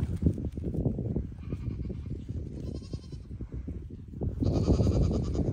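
Short, high animal calls with a rapid pulsing quiver, one about two and a half seconds in and a longer one near the end, over a low rumble.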